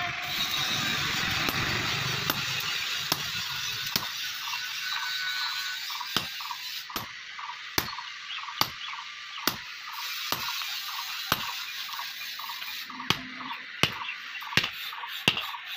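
A hammer strikes a hot-cut chisel set across a red-hot steel bar on an anvil, cutting the hot steel, with sharp metal-on-metal blows about one a second. A steady hiss runs beneath the blows.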